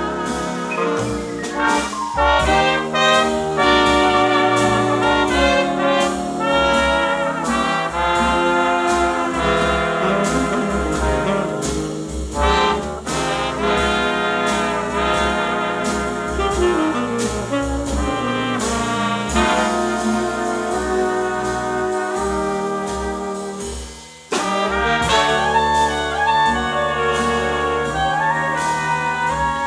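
Big-band jazz orchestra playing an instrumental passage, with the trumpets and trombones to the fore over saxophones and drums. The band drops out for a moment about three-quarters of the way through, then comes back in together.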